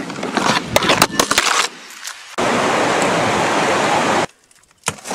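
Rustling and knocking of handled fabric close to the microphone for about two seconds. Then the steady rush of river water over rapids, which cuts off suddenly about four seconds in.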